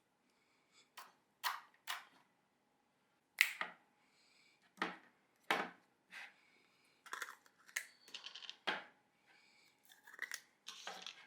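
Slime being squeezed and pressed by hand, giving a string of irregular sticky pops and squelches.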